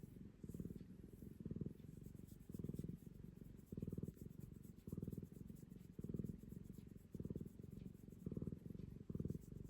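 Domestic cat purring close up: a low, rapidly pulsing rumble that swells louder about once a second as it breathes in and out.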